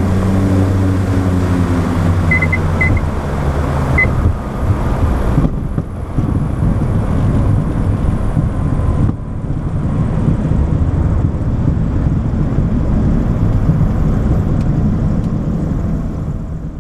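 Cockpit noise of a Diamond DA62 on its landing rollout: the drone of its twin turbodiesel engines falls in pitch over the first few seconds as power comes off, then gives way to a steady low rumble as it rolls along the runway. A few short high beeps sound between about two and four seconds in, and the noise fades out at the very end.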